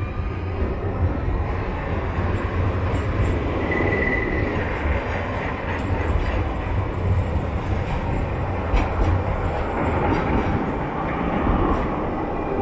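Low-floor electric trams rolling in on steel rails at close range, a steady rumble with a brief high whine about four seconds in and a few light clicks later on.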